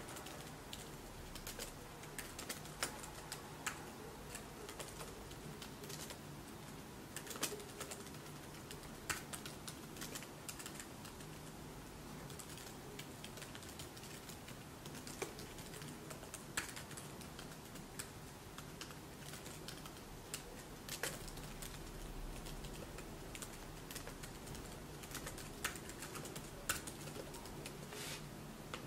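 Typing on a laptop keyboard: scattered, irregular key clicks over a faint low steady hum.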